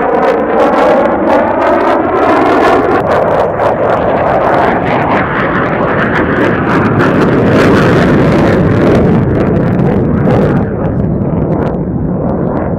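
Military fighter jet engine in a fast, low flyby. A roar whose pitch sweeps upward over the first couple of seconds gives way to a loud, ragged afterburner roar with crackling, easing a little near the end.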